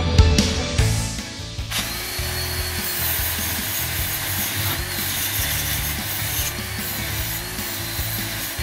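Proxxon LHW long-neck angle grinder running with its small disc against a workpiece clamped in a vise: a steady grinding noise with a few slight dips in pitch as it bears in.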